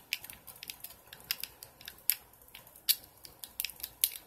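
A plastic fidget cube being fiddled with in the hands: a string of sharp, irregular clicks as its buttons and switches are pressed and flicked, about three a second.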